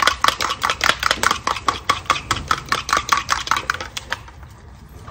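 Eggs being beaten in a bowl with a fork: rapid, even clicks, about seven a second, that stop about four seconds in.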